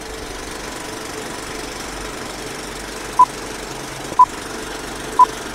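Vintage film-countdown sound effect: a steady film-projector rattle and hiss, with three short high beeps a second apart starting about three seconds in, marking the countdown numbers.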